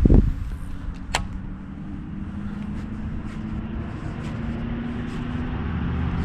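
Steady low rumble of road traffic with a faint engine hum. A dull thump comes right at the start and a sharp click about a second in, with a few faint ticks after that.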